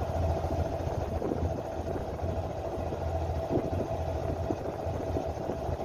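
A boat's engine idling steadily: a constant low hum with a steady higher whine above it.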